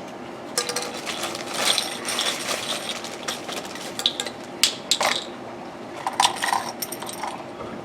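Small hard pieces of a kids' toy tool set being handled and set down: irregular clicks, clatters and rustling as toy screws, nuts and tools are sorted out.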